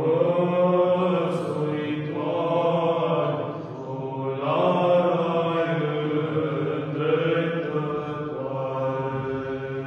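A small Orthodox strană choir of four male voices singing chant unaccompanied: a low note is held steadily beneath a moving melody, in swelling phrases.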